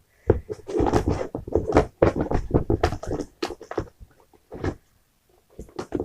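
Slime being handled: irregular squishing and crackling, dense for the first four seconds and then only a few scattered clicks.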